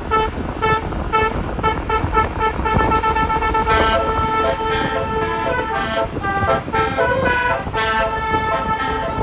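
Indonesian bus 'telolet' horn, a multi-trumpet air horn, playing a quick tune of short notes with a few longer held notes, over a low vehicle rumble.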